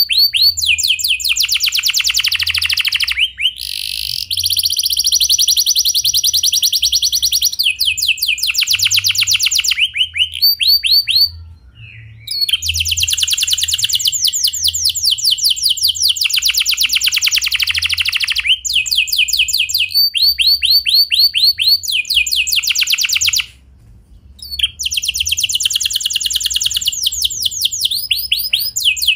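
Canary singing a long rolling song of rapid trills, with a steady held whistle for a few seconds early on. The song breaks off twice for about a second.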